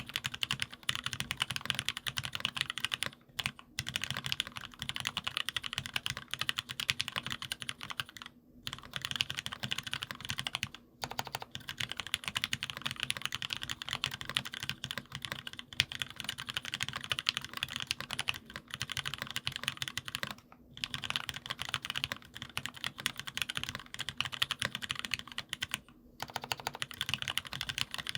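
Fast continuous typing on a gasket-mounted aluminium mechanical keyboard with lubed Gateron Merlot tactile switches and foam dampening, a dense run of soft keystroke clacks broken by brief pauses a few times.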